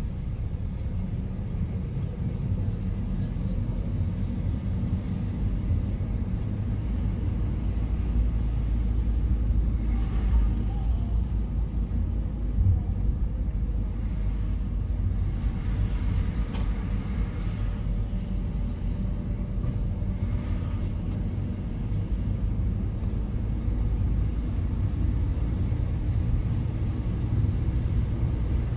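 Car driving slowly, heard from inside the cabin: a steady low engine and road rumble that swells briefly a few times.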